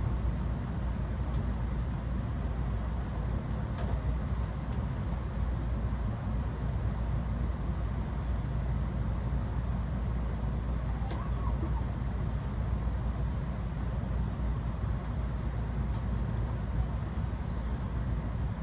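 Steady low rumble and hum of shinkansen trains at a station platform, heard from inside a standing Tokaido Shinkansen car, as an N700-series train on the neighbouring track moves slowly past; a few faint clicks.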